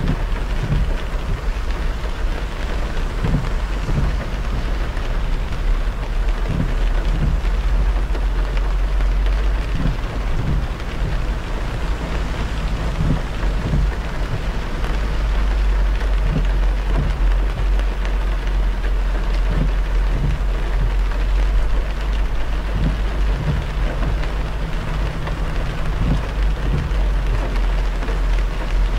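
A car driving on a wet expressway in the rain: a steady hiss of rain and tyre spray over a deep, constant road rumble, with scattered low thumps.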